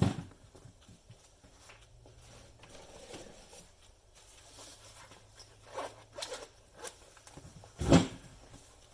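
Hands working on a small kitchen appliance during a teardown: light scrapes and small clicks, with one sharp knock about eight seconds in.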